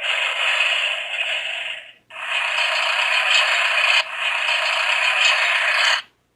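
A children's sound book's small speaker playing construction-vehicle sound effects: a dump truck crashing and clanking as it pours out gravel and dirt, then a front loader digging. Both are rattling, scraping noise, with a short break about two seconds in and an abrupt stop near the end.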